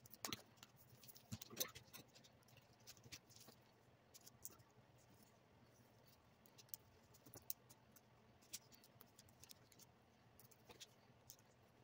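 Near silence with faint, scattered small taps and scratches of foam-board parts being handled and worked on a cutting mat.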